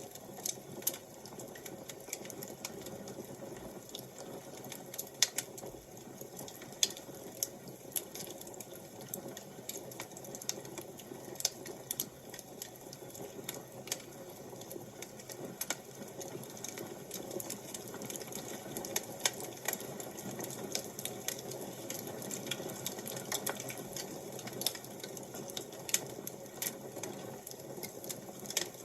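Wood fire crackling: irregular sharp pops and snaps, a few louder ones about 5, 11 and 19 seconds in, over a steady low rushing of the flames.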